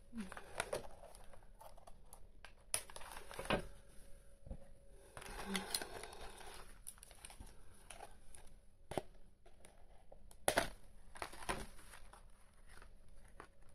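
Plastic and cardboard doll-box packaging crinkling and tearing as a doll is worked free of its box insert by hand, with scattered sharp clicks and snaps and a longer rustle about five seconds in.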